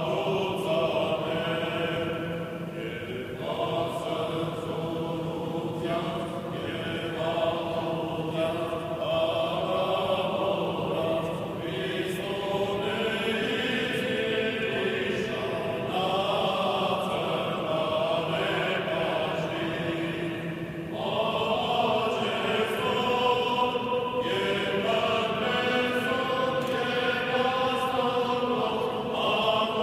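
Armenian Apostolic liturgical chant sung by a group of vested clergy, in long sustained phrases with short breaks between them.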